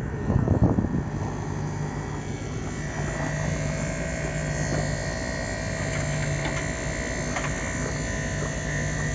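Air-conditioner outdoor unit running with its compressor and condenser fan, a steady drone while it is charged with R-22 refrigerant. A brief loud rumble comes in the first second, and a steady higher tone joins the hum about three seconds in.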